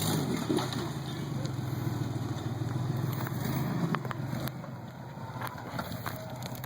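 Off-road vehicle engine running at low speed, with scattered sharp clicks and knocks over it; it eases off a little after about four seconds.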